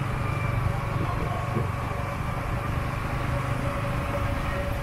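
Motorbike running steadily at low riding speed: a steady low rumble with a constant thin tone above it.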